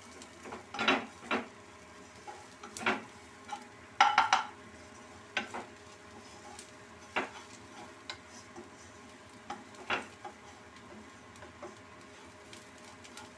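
Wooden spatula stirring and scraping fried onion, ginger and garlic in a wok over a faint sizzle of mustard oil, with irregular knocks against the pan. A louder ringing clatter of dishes comes about four seconds in.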